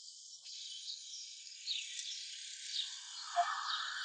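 Outdoor ambience: a steady, faint high-pitched hiss, like insects, with short falling bird chirps every half second or so. A lower rushing noise joins in about two and a half seconds in.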